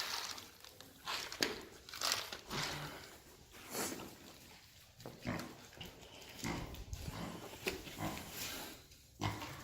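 Pot-bellied pigs grunting and snorting in a string of short, irregular bursts.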